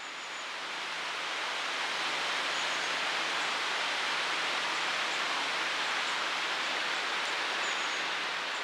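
A steady rushing noise that fades in at the start, with a few faint, short, high chirps over it.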